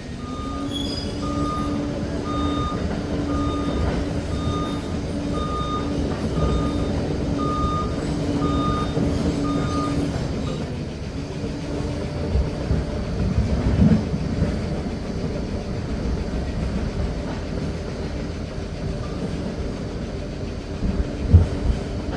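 Liebherr PR 746 Litronic crawler dozer running under load with its tracks clattering. Its reversing alarm beeps about once a second for the first ten seconds, then stops as the machine works on, with a sharp knock near the end.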